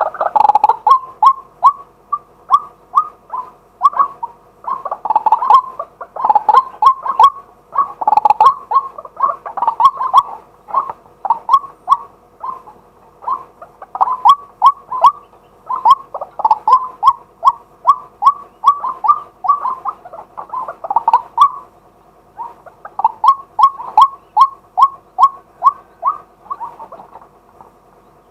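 Male white-breasted waterhen calling: a long run of short repeated notes, several a second in close groups, falling silent near the end.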